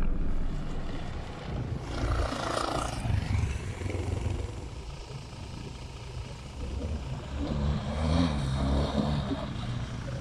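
A motorcycle riding across open desert, its engine heard from a distance, rising and falling as the bike approaches and passes.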